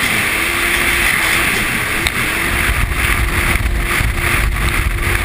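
Yamaha jet ski engine running at low speed: a steady hum under a rushing hiss, with the low rumble growing louder about halfway through.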